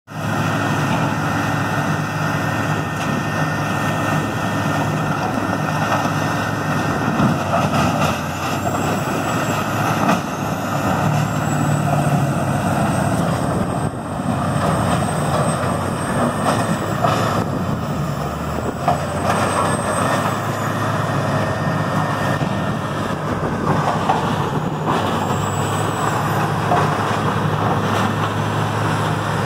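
Morbark 4600XL Track Cat horizontal grinder running steadily under load as it grinds wood, driven by its 1050 hp Caterpillar C27 diesel engine. Several sharp knocks come through the steady drone.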